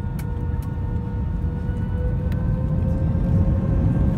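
Cabin sound of an Airbus A319 with IAE V2500 engines taxiing: a steady low rumble under an engine whine that rises slightly in pitch and gets a little louder about two to three seconds in. A few faint clicks.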